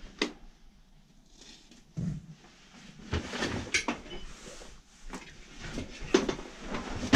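Scattered knocks, bumps and rustling of people moving through a cluttered room, with a sharp click just after the start.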